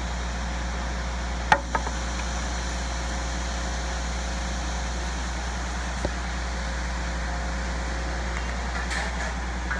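Rear-discharge ready-mix concrete truck's diesel engine running steadily, a low even drone. A sharp knock about a second and a half in, followed by a smaller one, and a lighter knock about six seconds in.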